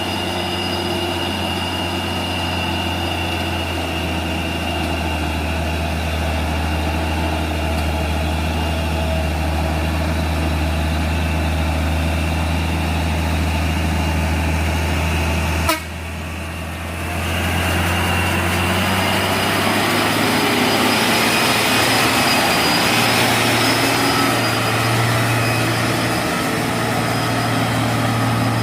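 Heavy diesel truck engine running with a steady low drone. About halfway through it breaks off abruptly at a sharp click, then a louder, noisier engine sound at a different pitch builds up over a couple of seconds.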